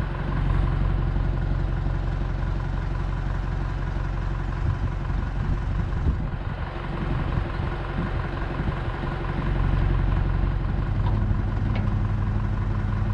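Leyland 262 tractor's diesel engine running steadily while it powers the trailer's hydraulic tipping. Near the end the engine note grows stronger and steadier.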